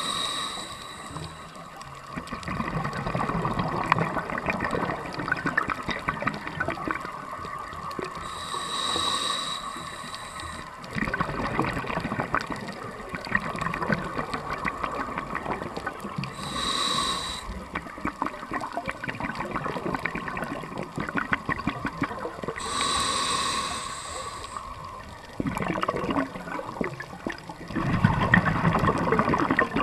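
Scuba regulator breathing heard underwater: four short inhalation hisses through the regulator, one every six to eight seconds, each followed by several seconds of bubbling as the exhaled air vents, loudest near the end.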